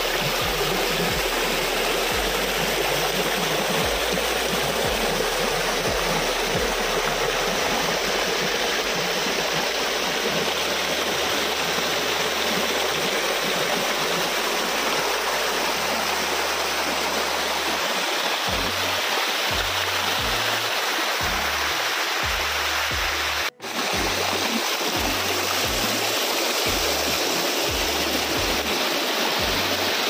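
Water rushing and splashing steadily over rocks in a small waterfall cascade. Background music's bass notes run underneath and become a pulsing beat a little past halfway. There is a brief drop-out about two-thirds of the way through.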